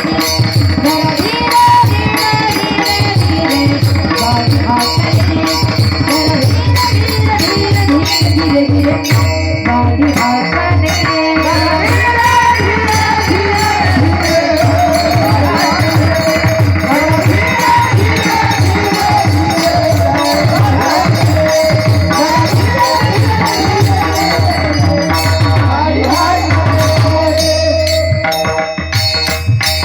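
Indian devotional music: a hand drum keeps a steady rhythm under jingling percussion. A wavering melodic line grows prominent from about twelve seconds in.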